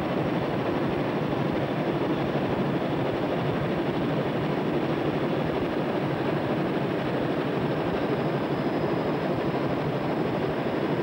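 Steady, unbroken cockpit noise of a jet in flight, engine and rushing airflow, heard from inside the cockpit.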